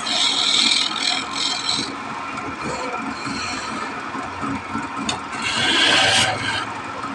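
A narrow lathe chisel cutting into a wooden spindle spinning on a wood lathe: a scraping hiss of shavings in a few short passes during the first two seconds, then a longer cut about five seconds in, with the lathe running underneath.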